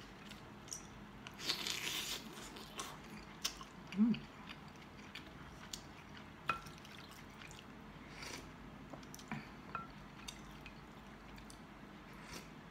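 Soup-eating sounds close to the microphone: scattered small mouth clicks and chewing noises. There is a short slurp about one and a half seconds in, a brief hummed "mm" at about four seconds, and a couple of faint clinks later on.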